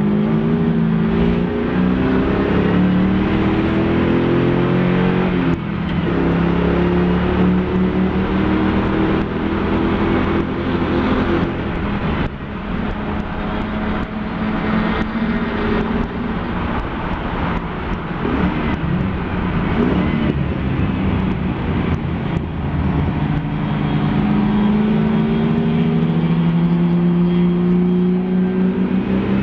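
Mopar-engined Nissan Fairlady Z race car's engine pulling hard, its pitch climbing and then dropping back at gear changes about five and eleven seconds in. It runs lower and rougher for a while off the throttle, then climbs again under full power near the end.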